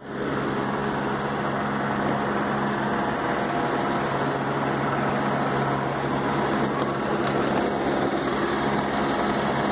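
Police helicopter circling, its rotor and engine giving a steady, even drone with a low hum.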